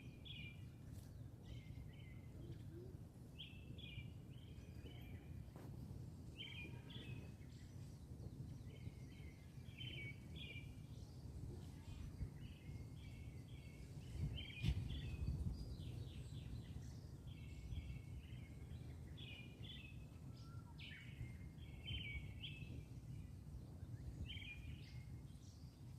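Small birds chirping in short, quick clusters every second or two, over a steady low outdoor rumble.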